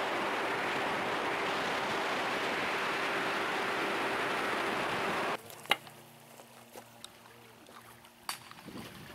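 A boat running under motor: a steady rush of wind and water with a steady engine hum beneath it. About five seconds in it cuts off abruptly to quiet, with a few small clicks and knocks.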